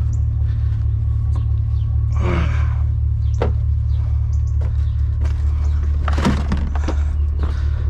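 A steady low rumble throughout, with a few separate knocks and thunks and a brief scraping rustle about two seconds in, as objects are handled and set down.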